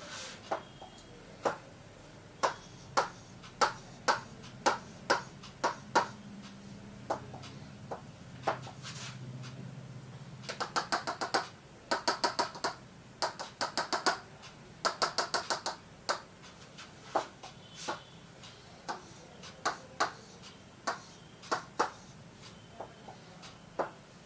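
Pen stylus tapping and clicking on the glass of an interactive touchscreen board as a diagram is drawn. Separate sharp taps, with several quick runs of rapid tapping about halfway through, as dashes and dots are drawn.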